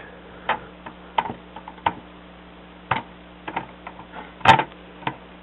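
Hard plastic LEGO parts of a Slave I model clicking and clacking as they are handled and moved: about eight scattered clicks, the loudest about four and a half seconds in.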